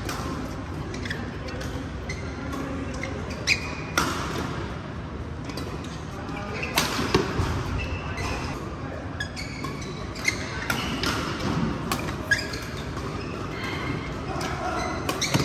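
Badminton rally in a large sports hall: sharp racket strikes on the shuttlecock at irregular intervals, with short shoe squeaks on the court floor in between, echoing in the hall.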